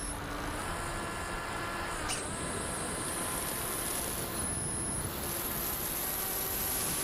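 Wind rushing over a Volantex Firstar 2000 RC plane in flight, with the thin whine of its electric motor and propeller shifting in pitch a couple of times.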